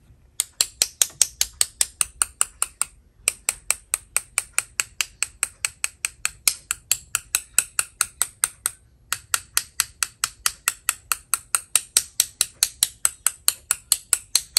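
A paint-loaded brush tapped rapidly and evenly, about five sharp taps a second, to spatter white paint dots, in three runs broken by short pauses about 3 and 9 seconds in.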